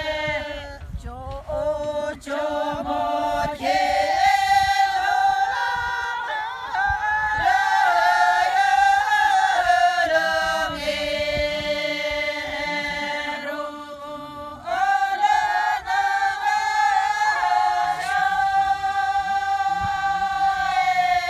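A group of women singing together, unaccompanied, in long drawn-out notes that slide between pitches, with a brief pause for breath about two-thirds of the way through.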